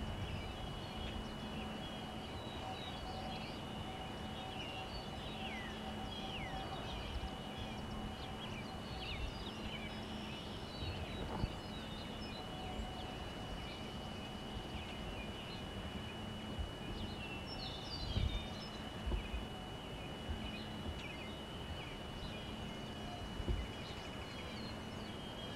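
Small songbirds chirping outdoors, many short calls over a steady hiss with a constant high-pitched whine underneath. A few low bumps come about two-thirds of the way through.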